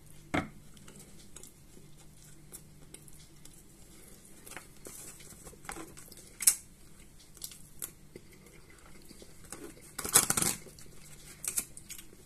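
Metal spoon clinking and scraping in a plastic tub of Olivier salad, with scattered light clicks. A sharp clink comes about six and a half seconds in, and a longer, louder scrape about ten seconds in.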